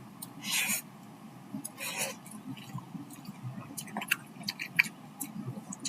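A person chewing a mouthful of spicy instant noodles close to the microphone, with small wet mouth clicks. There are two short hissing breaths, about half a second and two seconds in.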